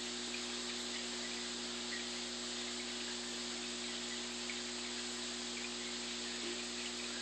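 Steady hiss with a constant low electrical hum, typical of aquarium equipment such as a filter running, picked up by a phone microphone; a few faint ticks sit over it.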